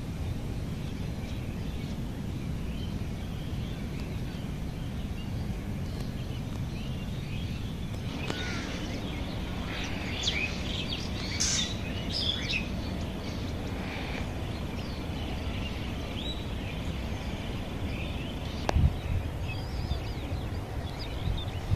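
Outdoor ambience: a steady low rumble of background noise, with small birds chirping, most busily in the middle. A single knock sounds near the end.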